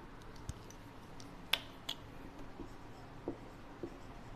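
Faint clicks and light taps: two sharp clicks about a second and a half in, then soft taps as a marker starts writing on a whiteboard.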